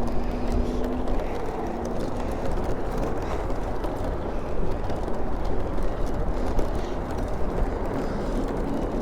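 Gusting wind buffeting the microphone while riding a bicycle, a dense low rumble that swells and dips without pause.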